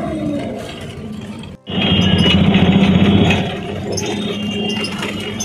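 Dense road traffic heard from inside a moving city bus: engine noise with vehicle horns sounding. The sound cuts out for a moment about a second and a half in, then comes back louder.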